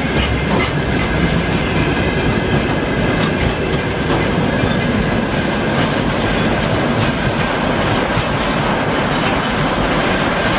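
Freight train of open gondola wagons rolling past: a steady loud rumble of steel wheels on the rails, with clicks as the wheelsets cross rail joints and a thin steady whine above it.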